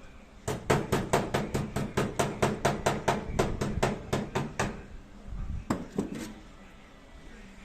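Hammer blows on sheet-metal bodywork: a quick, even run of about five strikes a second for roughly four seconds, then two more strikes a second later.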